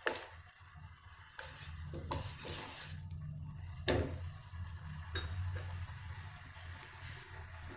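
Utensil stirring a simmering syrup in a cooking pot, clinking sharply against the pot several times, loudest about four seconds in, over a steady low hum.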